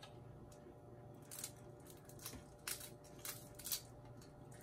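A few faint, short taps and clicks, spaced irregularly: small kitchen items being handled on a counter.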